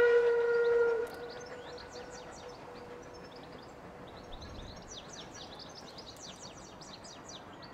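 A train whistle sounding one steady note that cuts off about a second in, then birds chirping and singing over a light outdoor hiss.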